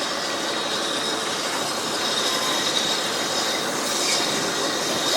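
Steam-hauled passenger train, 60163 Tornado's train, running along the track: a steady rumble of wheels on the rails with a thin, steady high-pitched wheel squeal.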